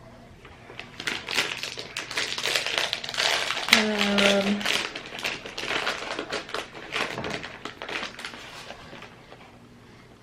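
Crinkling plastic snack wrapper being handled, busy crackling for several seconds that fades out near the end. A short hummed voice sound about four seconds in.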